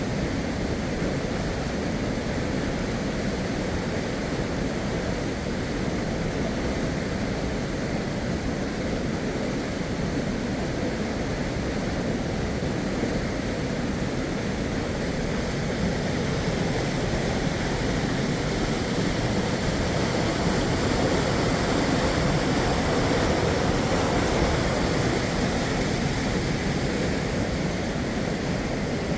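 Steady rush of flowing river water, swelling a little past the middle and easing off near the end.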